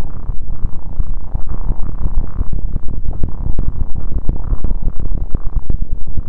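Synthesized atmospheric glitch sound effect: a dense, stuttering electronic drone, heavy in the bass, broken up by rapid digital clicks and crackles.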